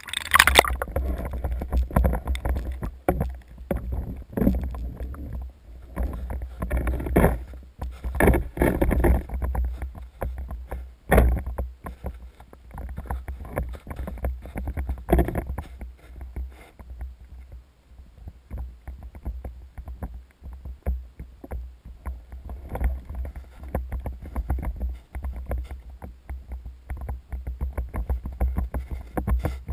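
Muffled sound from an action camera in a waterproof housing moving in the water under the ice: a steady low rumble with irregular knocks and sloshing, more of them in the first half.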